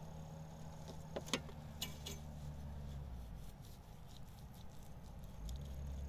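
Handling and carving a whole roast chicken on a wooden cutting board: a few sharp clicks and cracks, two close together about a second in and two more around the two-second mark, over a low steady rumble.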